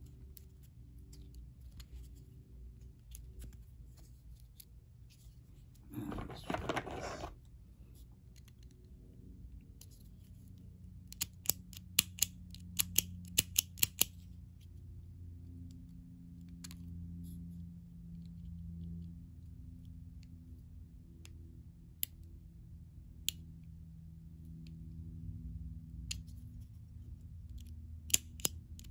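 Small metal clicks from a vintage Continental flat ad petrol cigarette lighter being handled and reassembled: a quick run of clicks about eleven to fourteen seconds in, then a few single clicks later. A brief rustle comes about six seconds in, over a faint steady low hum.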